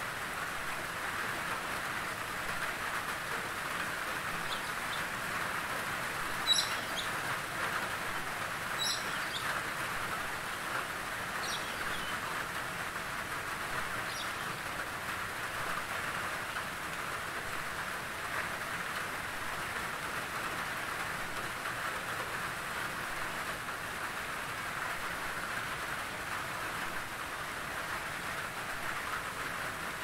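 Steady rain falling on tree leaves, an even hiss. In the first half come a few short, high bird chirps.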